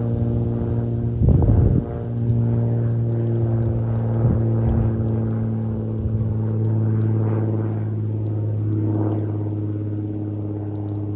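Extra 300 aerobatic plane's Lycoming six-cylinder engine and propeller droning steadily overhead, the pitch shifting a little near the end as it manoeuvres. Wind buffets the microphone about a second and a half in.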